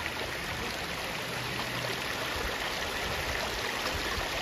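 Shallow creek water rushing steadily over rocks.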